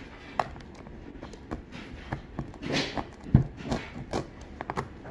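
Kitchen knife prying and cutting into a durian's tough, spiky husk: scattered cracks and knocks with a couple of brief tearing rasps, and one louder thump a little past halfway.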